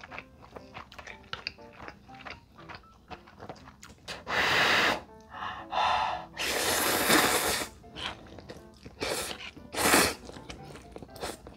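Instant ramen noodles slurped off chopsticks in several long, loud draws, each a rush of sucked-in air and noodles, over quiet background music.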